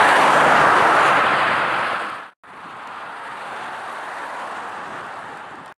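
Highway traffic noise. A vehicle rushes past, rising and then fading, and after a sudden break comes a quieter, steady rush of traffic.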